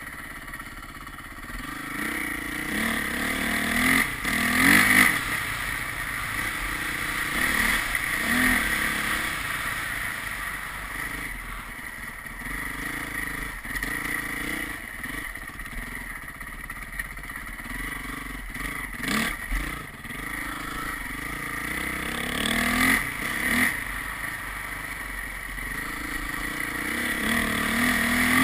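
Motorcycle engine running while being ridden, its pitch climbing as it is revved several times, and rising again near the end as it accelerates.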